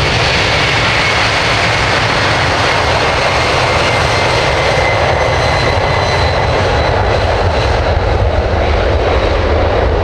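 Jet airliner engines running loud and steady, a broad rushing noise with a faint high whine in it; the highest part of the sound thins out over the last couple of seconds.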